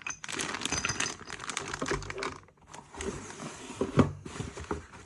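Packaging being handled: rustling and crinkling with many light clicks as small parts are unpacked, and a sharper knock about four seconds in.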